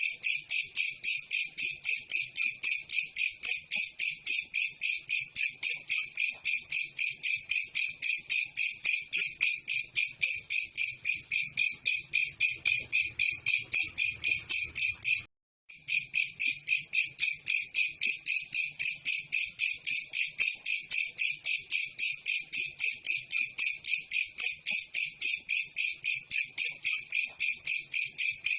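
A belalang kecek insect singing: a loud, continuous, even train of rapid shrill pulses, several a second, broken by a brief gap about halfway through.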